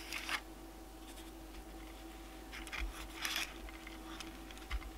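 A silicone spatula scraping thick deodorant paste into a foil-wrapped cardboard roll: a few short, faint scrapes and rustles, the loudest cluster a little past halfway, with a couple of soft low thuds.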